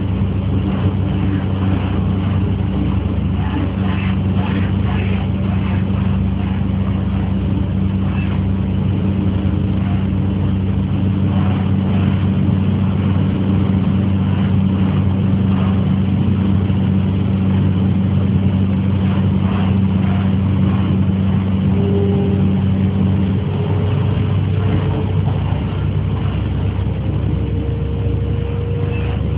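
Inside an MTR K-train electric metro car while it runs: a steady rumble of wheels on rail with a low hum from the traction equipment. The hum's upper tone drops away about two-thirds of the way through, and a faint whine rises slowly in pitch over the last several seconds.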